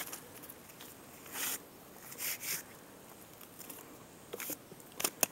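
Leaves and plant stems rustling in a few short bursts as brush is pushed aside and handled, with several sharp clicks near the end.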